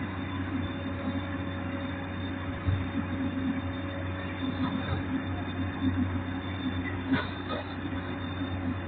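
Komatsu PC200 hydraulic excavator's diesel engine running steadily with a constant low hum.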